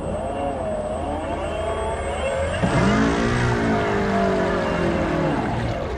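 Radio-controlled model boat motors running at speed, their pitch wavering as the boats turn and change throttle. About halfway through, a louder boat comes close, its pitch rising and then falling away as it passes.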